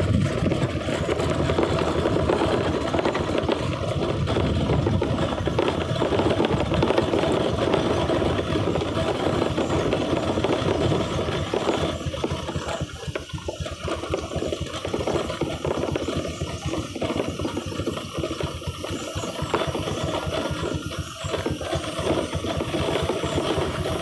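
Steady rushing noise of wind on the microphone and vehicle road rumble while travelling slowly down a steep hill road, with a faint steady high-pitched whine throughout.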